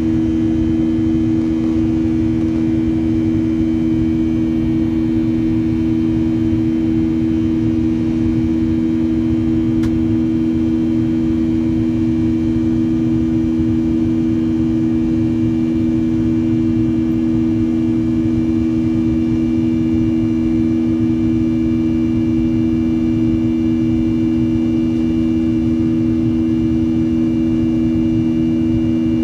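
Cabin noise of a Boeing 737-800 in flight: the steady drone of its CFM56-7B turbofan engines, two strong low hums over an even rush of air.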